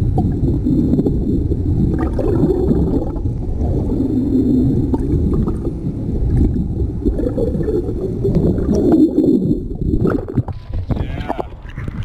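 Muffled underwater water noise heard through a submerged camera housing: a low gurgling rush of water and bubbles. About ten seconds in the sound changes and clears as the camera comes up out of the water.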